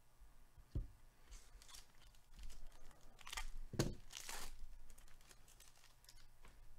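Plastic wrapper of a Topps Baseball 2022 Series 1 card pack being crinkled and torn open by hand in several short rips, the loudest about four seconds in, after a soft knock a little under a second in.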